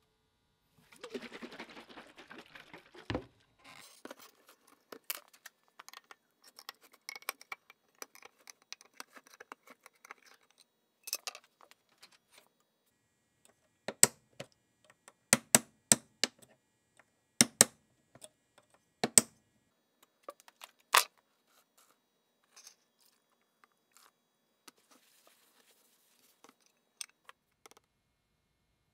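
Handling and small clicks of a metal paint can and its lid, with a knock about three seconds in. Then, about halfway through, a run of roughly eight sharp metallic strikes, several in quick pairs: a hammer tapping a punch through the tin rim of the can to make drain holes.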